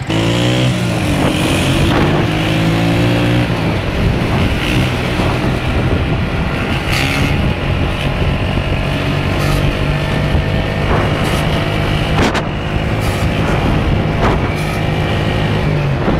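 Motorcycle engines running at road speed, with wind noise and the engine pitch shifting in the first second or so. A few brief sharp knocks stand out.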